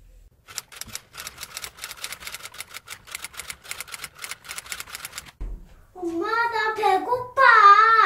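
Rapid typing on a computer keyboard, a quick run of key clicks that stops about five seconds in. A young girl then calls out loudly in a high, sing-song voice.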